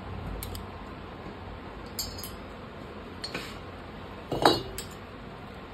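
A handful of light metallic clinks and taps as metal engine parts and a hand tool knock together during motorcycle engine assembly, the loudest about four and a half seconds in.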